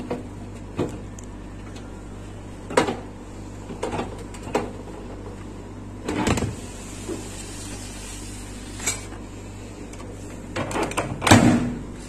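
Plastic Sistema microwave rice steamer knocking and scraping against the microwave and the counter as it is lifted out and set down: a series of separate knocks and clatters, the loudest cluster near the end. A steady low hum runs underneath.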